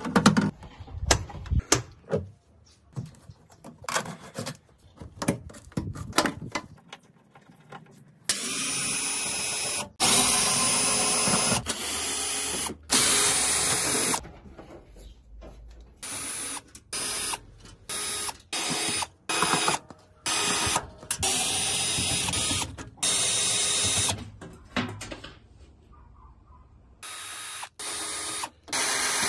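Cordless drill-driver running in repeated short bursts of a second or two, spinning the screws in a washing machine's cabinet panels. Before the first burst come clicks and knocks of plastic panel covers being handled.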